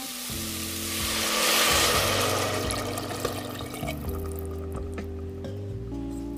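Outro music of held chords that change a few times. Under it, a kitchen-style hiss of liquid or frying swells and fades within the first three seconds, then a few light clicks.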